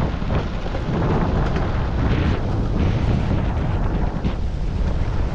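Nissan Xterra driving a rough dirt trail: a steady low rumble of engine and tyres, with wind buffeting the microphone and scattered crackle from gravel.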